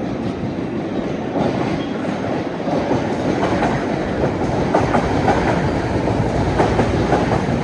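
Train passing at speed: a steady rumble of the cars with wheels clacking over rail joints.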